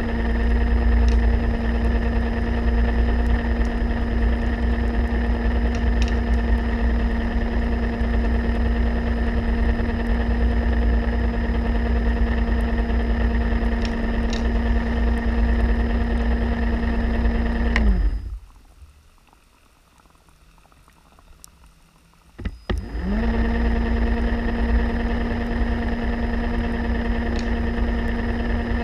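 Electric motor of an underwater scooter (diver propulsion vehicle) running at a steady pitch with a low rush of water. It is switched off about 18 seconds in, its pitch sliding down to a stop, then started again about four seconds later, spinning back up to the same pitch.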